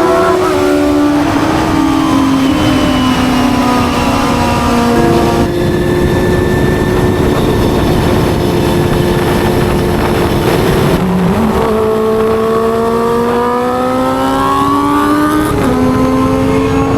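Honda Hornet 250's high-revving inline-four engine running under way. Its pitch drops in steps and then jumps with gear changes, and climbs steadily through the second half.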